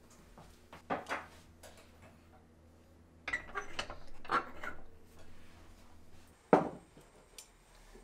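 An enamelled pot set down on the grate of a tabletop cassette gas stove, with a few knocks and some clatter. Near the end comes one sharp, loud click as the stove's ignition knob is turned and the burner lights.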